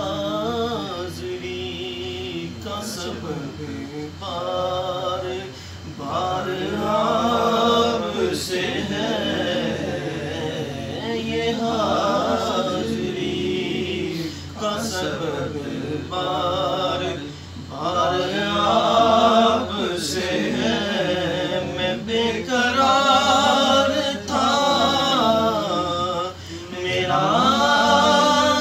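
Unaccompanied man's voice reciting a naat (Urdu devotional poem) in long, ornamented sung phrases, with short pauses for breath between them.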